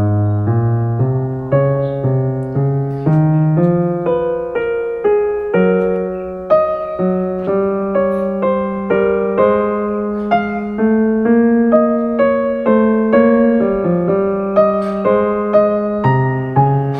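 Background music: a gentle piano melody played in steady notes, about two or three a second.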